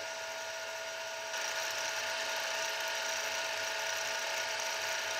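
Milling machine running with a roughly 20 mm end mill taking a light finishing cut along the side of an aluminium block: a steady machine hum with several steady tones and a hiss of cutting that gets a little louder about a second in.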